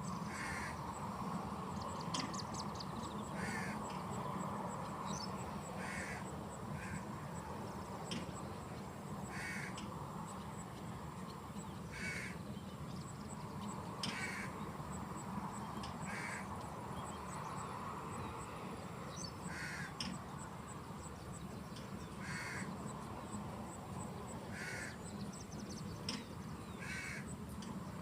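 Birds giving short, harsh calls, one about every two seconds, over a steady background hiss.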